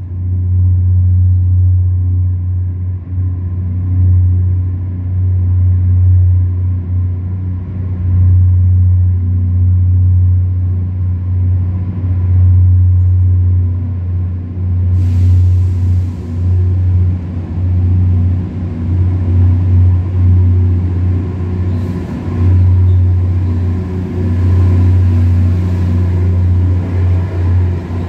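Loram diesel work train's engines running with a steady deep hum and rumble as the train creeps up through the subway tunnel and along the platform.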